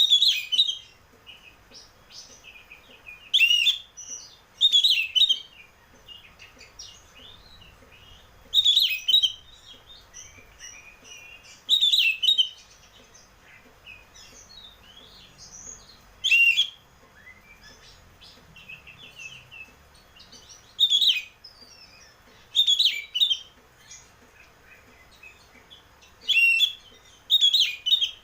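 Oriental magpie-robin singing: about ten loud, clear whistled phrases a few seconds apart, with softer twittering between them.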